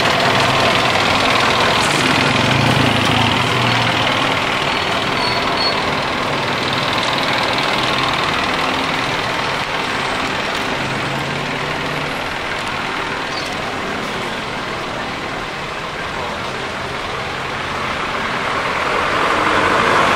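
Engine of a motor vehicle running steadily close by, a low hum with road noise. It eases off a little past the middle and grows louder again near the end.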